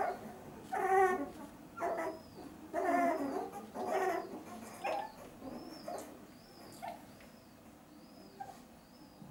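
Two-week-old English setter puppies whimpering and crying, about one cry a second, the cries growing weaker after about five seconds. A faint high chirp repeats in the background.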